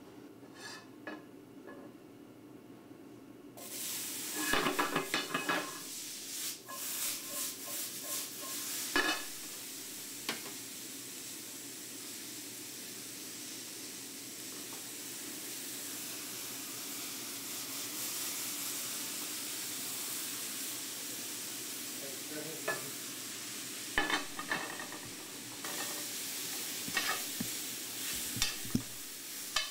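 Diced tomatoes sizzling in a hot stainless steel skillet. The sizzle starts suddenly about four seconds in and then runs steadily, with clinks and clanks of metal tongs against the pan. Near the end the tongs toss arugula in the pan, with a cluster of clinks.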